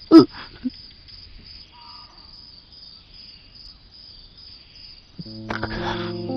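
Crickets chirring steadily in the night, with a short loud cry from a man's voice at the start. Sustained music chords come in about five seconds in.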